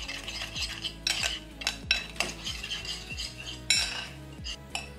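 Metal spoon stirring a marinade in a glass bowl, scraping and clinking against the glass in irregular strokes.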